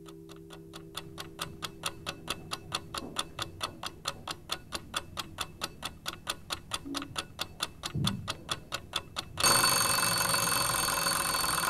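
Clock ticking steadily about four times a second, growing louder. Near the end it is cut into by a loud, continuous ringing bell like an alarm clock.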